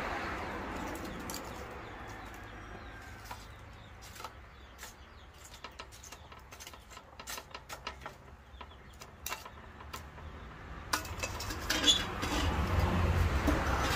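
Lumps of charcoal clicking and clinking as they are shifted by hand inside a steel wheel-rim fire pit, many small sharp clicks. Near the end a stainless steel frying pan is set back down on the rim with a few louder knocks.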